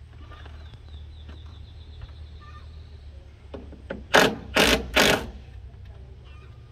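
Cordless power driver driving a self-drilling roofing screw through a metal fastener strip, run in three short bursts about half a second apart.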